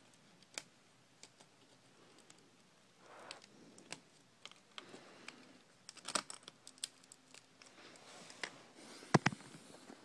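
Scattered light clicks and taps of plastic laptop parts and a wire being handled while the DC jack cable is worked free of its routing in the chassis, with a few louder clicks near the end.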